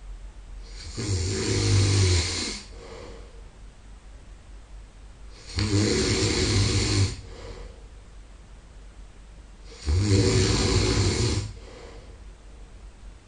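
A sleeping man snoring loudly and steadily: three rasping snores about four seconds apart, each lasting about a second and a half, with quieter breathing between them.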